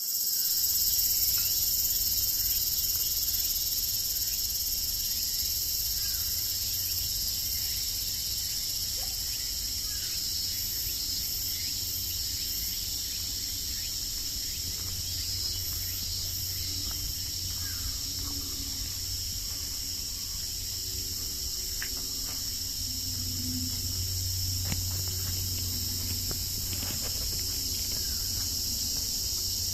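Steady high-pitched chorus of insects, holding evenly throughout, over the low rush of a mountain stream.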